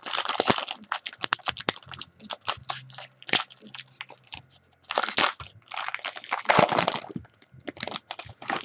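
A trading-card pack's wrapper being torn open and crinkled, with cards rustling and clicking as they are handled: a quick run of crackles, with longer, louder rustles about five seconds in and again between six and seven seconds.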